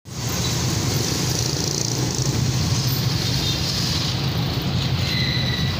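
A vehicle engine running steadily, with street traffic noise around it.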